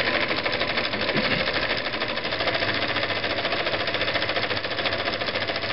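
Husqvarna Viking Type 21 zigzag sewing machine running at a steady speed, stitching a pattern stitch through fabric with a fast, even clicking rhythm. It is very quiet when it's running.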